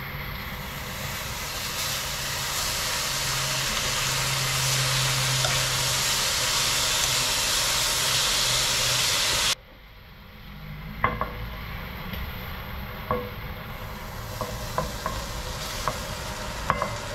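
Pork shoulder fillets sizzling loudly as they sear in hot oil in a pot. About halfway through, the sizzle cuts off suddenly to a quieter sizzle with scattered light clicks and taps.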